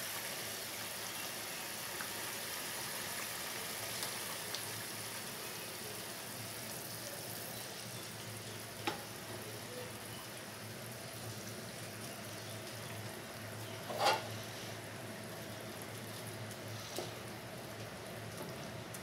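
Onion-tomato curry gravy simmering in a pan, a steady bubbling hiss, with a few knocks of a wooden spatula against the pan, the loudest about fourteen seconds in.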